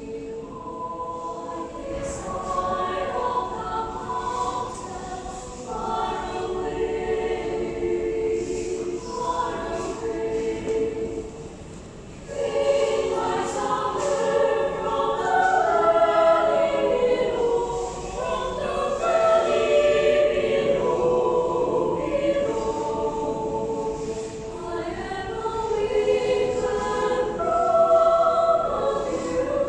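A choir singing in harmony, with long held notes in flowing phrases. There is a short dip between phrases about twelve seconds in.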